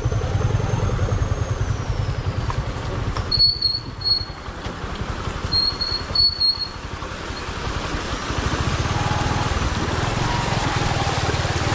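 Motorcycle engine running steadily under load, with short high squeaks twice, about three and a half and six seconds in.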